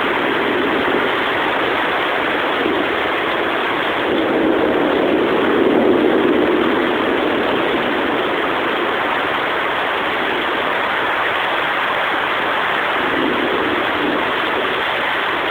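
Heavy rain pouring steadily, with a low rumble swelling up from about four seconds in and fading by about seven seconds.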